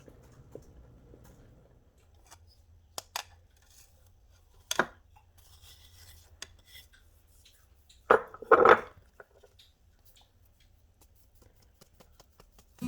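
Occasional clinks and knocks of cutlery and dishes, with louder clatters about five seconds in and again around eight to nine seconds in.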